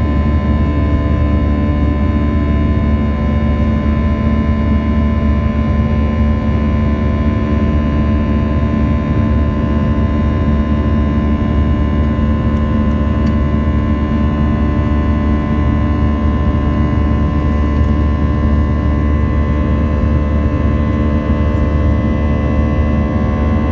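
Airbus A320 jet engines heard from inside the cabin during the climb after takeoff: a steady low rumble with several steady whining tones laid over it.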